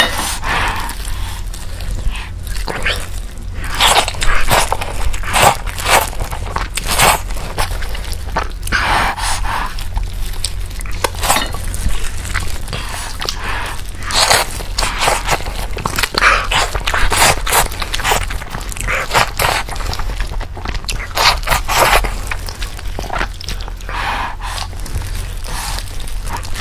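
Eating sounds: repeated bites and chewing of sausage and bracken fern, with irregular crunchy, wet mouth sounds one after another, over a steady low hum.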